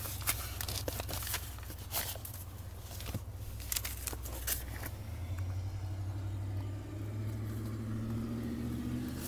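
The Cobalt SS's supercharged 2.0-litre four-cylinder idling with a steady low hum, with a few sharp clicks and knocks in the first couple of seconds.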